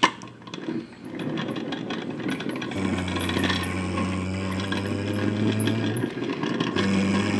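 Diecast toy truck being pushed along a hard surface, its wheels rattling and clicking, with a low steady hum that stops briefly after about 6 seconds and then resumes.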